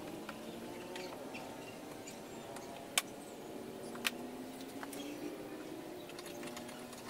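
Hand work refitting a car's plastic front bumper: scattered small clicks and taps of trim and fasteners, with two sharp clicks about three and four seconds in, over faint wavering tones in the background.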